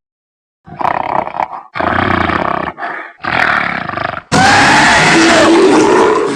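Designed monster roar sound effects, the fan-made voice of the kaiju Titanus Afanc: four short roars in quick succession, then a longer, louder roar about four seconds in, lasting some two seconds with a curved tone that rises and falls.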